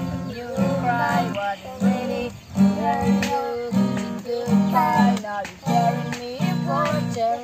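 A young girl singing a melody, accompanied by an acoustic guitar strummed in a steady rhythm of chords.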